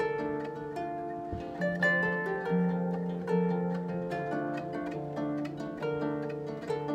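A harp played solo, both hands plucking a melody over lower bass notes, the strings left ringing between plucks.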